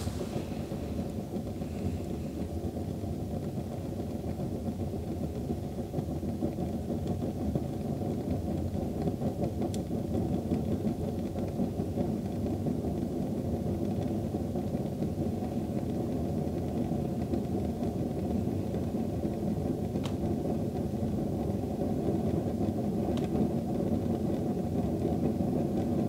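Sunwind Corona RX2485 kerosene heater in its startup phase just after ignition: a steady low rumble from the lit burner that grows slowly louder, with a few faint ticks. Once the heater is warmed up it runs nearly silently.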